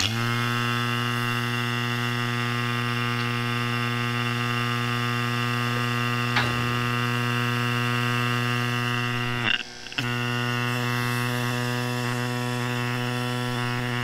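Makita cordless refrigeration vacuum pump switched on and running with a steady hum; it stops for a moment about two-thirds through and starts again. It is evacuating a bulldozer's air-conditioning system, but its hose fitting won't seal properly.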